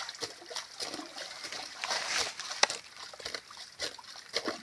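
Wet mud being dug and scraped with a hand digging tool in a muddy pit: irregular squelches, sloshes and scrapes, with one sharp knock about two and a half seconds in.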